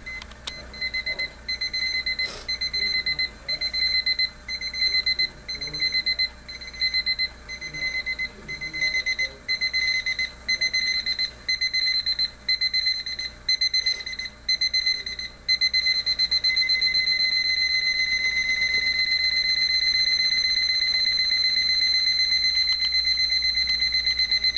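Advance 2240 quartz alarm clock's electronic alarm beeping, a high beep first in short groups with gaps, then about two-thirds of the way in switching to continuous rapid beeping and getting a little louder: the ascending alarm stepping up.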